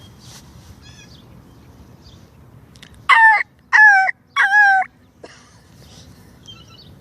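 A jay calling three times in quick succession. Each call is loud, about half a second long and drops slightly in pitch.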